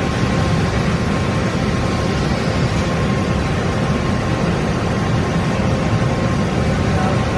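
Okuma Multus U3000 mill-turn machine running in its enclosure, its milling spindle turning a tool: a steady machine noise with a thin high steady tone.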